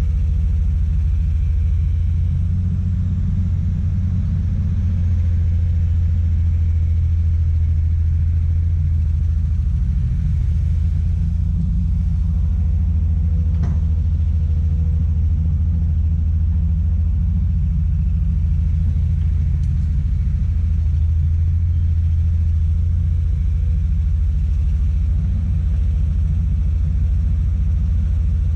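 Komatsu PC200 hydraulic excavator's diesel engine running steadily with a deep, low rumble. There is a single sharp click about halfway through.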